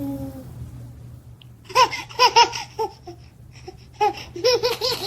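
Baby laughing in two short runs of quick, high-pitched giggles, about two seconds in and again near the end.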